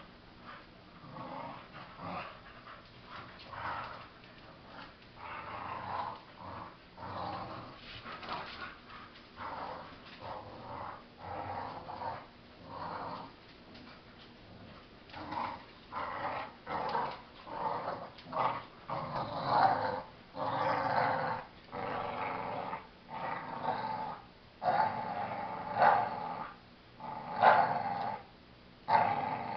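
Two dogs, a boxer and a pit bull, play-fighting with repeated short growls that get louder and come more often in the second half.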